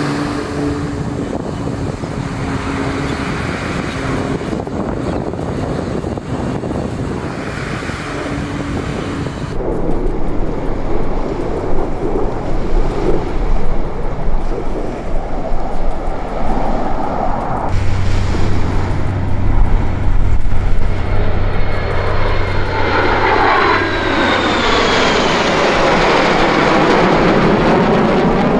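Turboprop engines of KT-1B Wongbee trainer aircraft flying a display, a steady drone that gets louder about ten seconds in. Near the end the formation passes overhead and the sound sweeps down in pitch.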